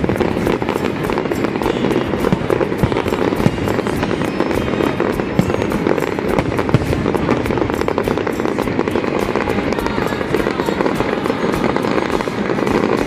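Fireworks display crackling continuously: a dense, unbroken stream of small pops and crackles at a steady loudness, with no single big bang standing out.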